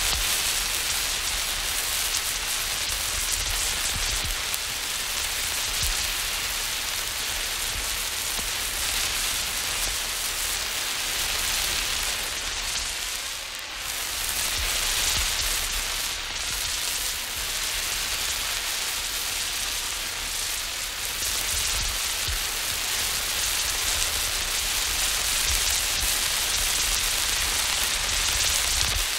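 An emergency flare burning with a steady fizzing hiss and fine crackle, as it is moved about; the hiss dips briefly about halfway through.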